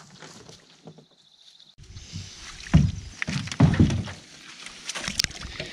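Hollow thumps and knocks from a gear-laden canoe being handled at the shoreline, the heaviest coming a little under three seconds in and again near four seconds, with smaller clicks and rustling around them. A faint high pulsing trill comes first.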